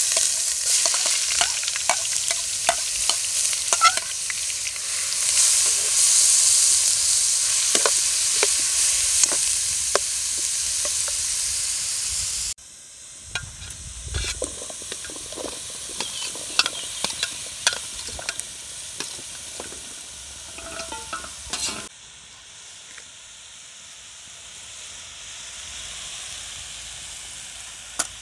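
Food sizzling loudly in a hot pot over a wood fire, with a metal spoon clinking and scraping as it is stirred. After a sudden cut about twelve seconds in, the sizzling is quieter with scattered spoon clinks. After another cut a little past twenty seconds, a softer sizzle goes on.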